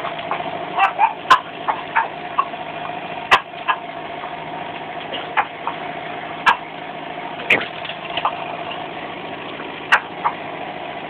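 A dog barking almost silently: about ten short breathy puffs at uneven intervals instead of barks, over a steady mechanical hum.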